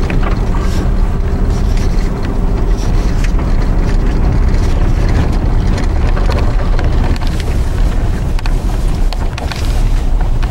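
Vehicle driving slowly over an unplowed snow-covered dirt road: a steady low rumble of engine and tyres, with scattered clicks and knocks.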